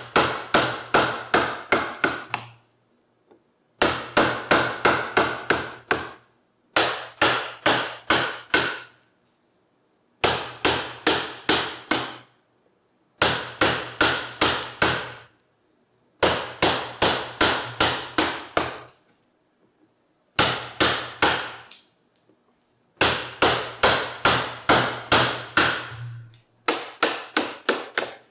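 Mallet blows driving a carving chisel into a walnut seat blank to chop out waste. The blows come in runs of about four to five a second, each run lasting about two seconds, with short pauses between runs.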